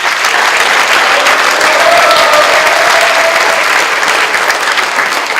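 Audience applauding loudly and steadily in a hall.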